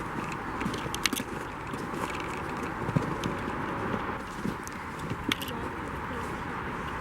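Footsteps crunching on snow and ice, irregular steps, over a steady rushing noise.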